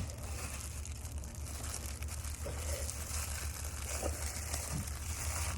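Faint crinkling and tearing of a plastic snack wrapper as a block of chocolate fudge is opened, over a steady low hum.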